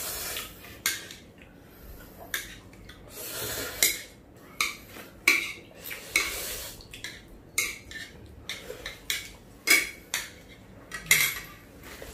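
Metal chopsticks clicking and scraping against ceramic plates of noodles: a dozen or so irregular sharp clicks as the noodles are picked up and stirred.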